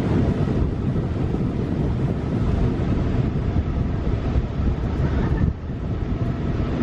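Steady low rumble of wind buffeting the microphone, dropping a little about five and a half seconds in.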